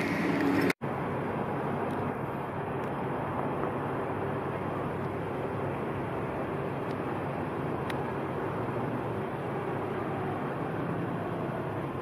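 Steady rumble of road traffic and engines, with a low hum and a short break in the sound about a second in.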